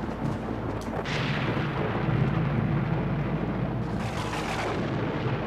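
Deep rumbling noise with a rushing hiss that surges about a second in and again around four seconds in: a dramatic rumble sound effect.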